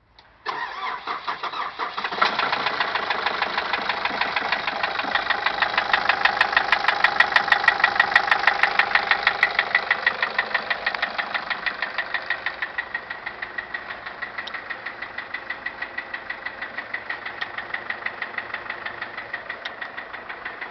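2006 Nissan Caravan engine starting up about half a second in, then running with a steady, rhythmic knock that repeats with the engine's turning. The knocking is the fault being shown, and the engine's run eases and settles after about ten seconds.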